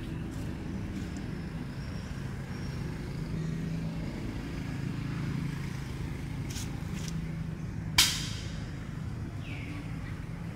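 Steady low engine hum, with one sharp click about eight seconds in.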